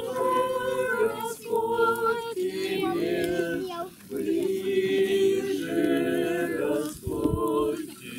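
A group of voices singing a song together in long held notes, with short breaks between phrases about four and seven seconds in.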